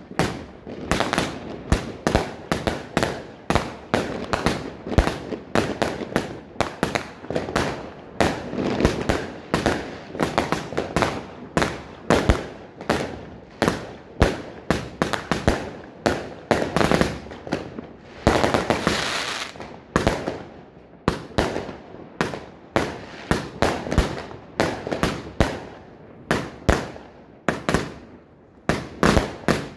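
Weco Time Machine firework cake firing: a rapid, steady run of shots going up and bursting with sharp bangs, two or three a second. About eighteen seconds in there is a longer stretch of hissing crackle.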